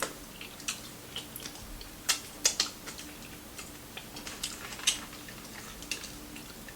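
Close-up crunching and chewing of crispy fried fish and wings: irregular sharp crackles, loudest a couple of times around two to two and a half seconds in and again near five seconds.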